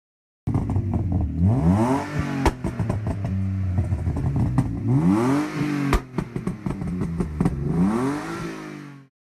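BMW M5 engine revved three times, each rev rising sharply in pitch and falling back to idle. Sharp cracks follow the first and second revs.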